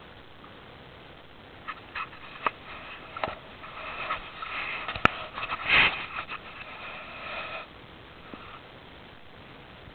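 Small pet parrot making a steady soft chattering sound close to the microphone, preceded by a few sharp clicks and with one loud brief burst of noise in the middle.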